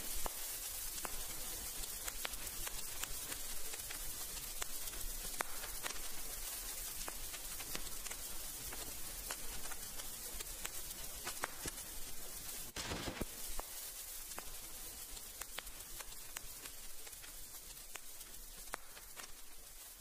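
A steady crackling hiss dotted with scattered sharp clicks, with a brief louder swell of hiss about two-thirds of the way through, slowly fading out.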